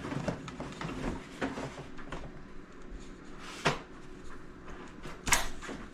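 Irregular light knocks, clicks and scraping from handling work in a wall cavity, with two sharper knocks a little past halfway and near the end.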